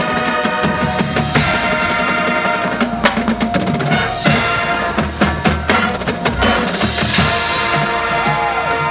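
High school marching band playing, with frequent snare and bass drum strikes from the drumline over held chords from the winds.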